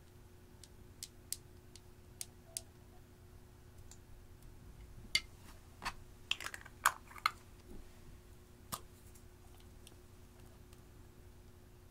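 Sharp clicks and taps of makeup cases and a metal lipstick tube being handled and opened: a few light ticks in the first three seconds, a cluster of louder clicks around the middle, and one more a second and a half later, over a faint steady hum.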